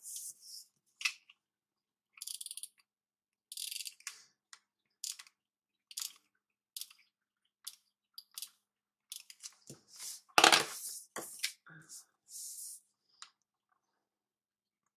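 Paper and sticker sheets being handled in short rustling bursts, with small clicks and taps, and one louder knock on the desk about ten seconds in.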